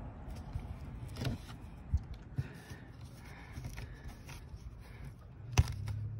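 Quiet handling sounds of a hand pressing and smoothing a glued canvas patch down onto tent canvas, with a few small clicks and one sharper click near the end, over a low steady rumble.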